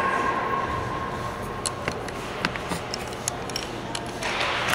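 Hockey arena ambience: a low background hum of the rink with scattered sharp clicks and taps. A louder rush of noise swells near the end.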